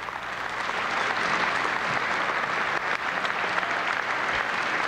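Crowd applauding, swelling over the first second and then holding steady.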